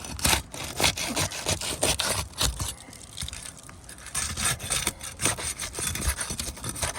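Irregular scraping and rubbing strokes against asphalt roof shingles, a quick run of rough strokes and crackles.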